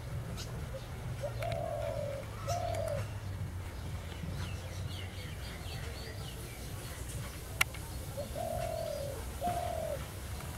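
A dove cooing: a low two-note phrase, heard twice about six seconds apart. Between the phrases come faint, thin, high chirps from another small bird, and there is one sharp click about seven and a half seconds in, over a steady low hum.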